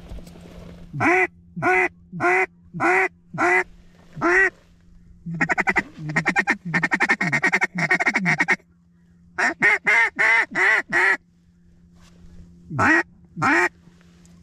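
Hen-mallard calls blown on a duck call: a string of about six quacks, then a fast feed chuckle of rapid short notes for about three seconds, then another string of quacks and two more near the end, calling to an incoming mallard.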